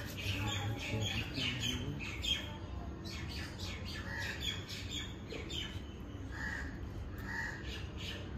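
Several birds calling: a rapid run of short chirps with a few longer, harsher calls mixed in, over a low steady background rumble.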